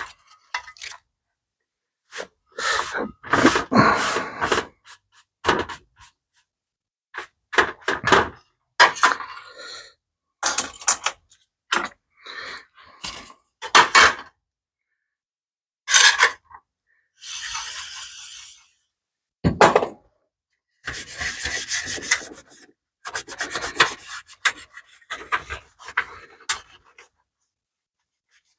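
Hand cleaning of a greasy BMW E30 motor-mount heat shield: a shop towel rubbing and wiping over the metal in short, separate strokes, with occasional sharp knocks of the part or a tool against the metal tray.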